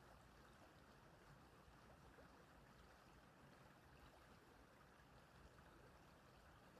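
Faint, steady trickling of a small stream.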